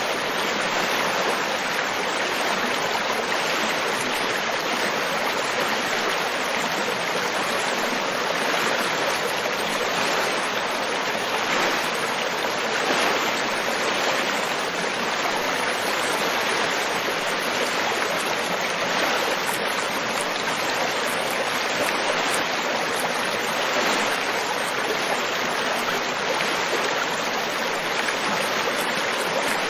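River water flowing, a steady rushing of running water.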